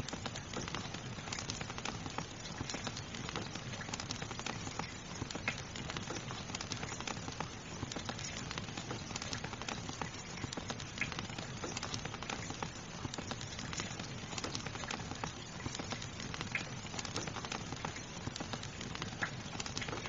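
Steady soft rain mixed with a fireplace fire crackling, with many small pops and ticks throughout.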